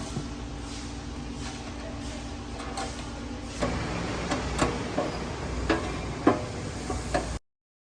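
Steady background noise with a faint hum, then, from about halfway, a series of about seven sharp clicks and knocks of parts and tools being handled during the intake installation. The sound cuts off abruptly near the end.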